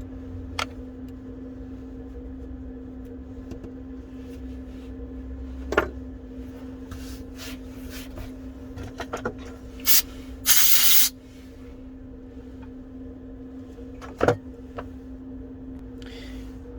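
A steady hum with a few small clicks and taps. About ten seconds in come two loud hissing sprays, a brief one and then one lasting about half a second, as the phone's charging port is blown clean.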